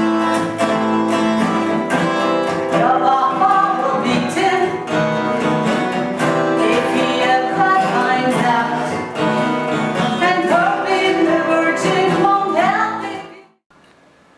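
A song with singing over guitar, in a country style, which cuts off about thirteen seconds in.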